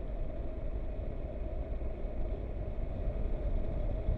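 Triumph Tiger 1200 XRT's three-cylinder engine running steadily at cruising speed along a country lane, mixed with wind noise on the microphone.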